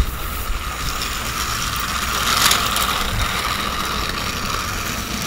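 Battery-powered toy train running along its track, its small motor and gears making a steady whir. A click at the start, and the whir swells briefly about halfway through.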